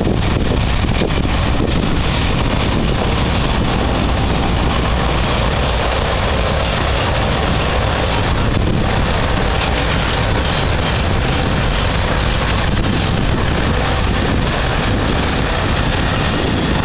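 CSX GE C40-8 diesel-electric locomotives passing close by: a loud, steady rumble of their diesel engines and rolling wheels on the rails.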